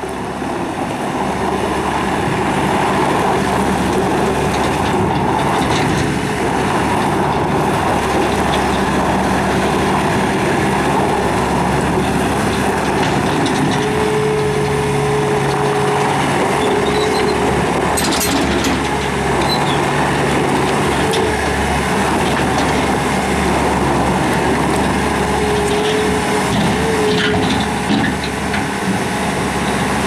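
Bobcat S590 skid steer loader's diesel engine running steadily as the machine drives and works its bucket. A higher whine joins the engine drone briefly about halfway through and again near the end.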